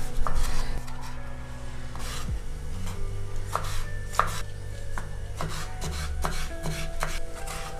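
Kitchen knife slicing and dicing a tomato on a wooden cutting board: a run of irregular knife strokes tapping the board.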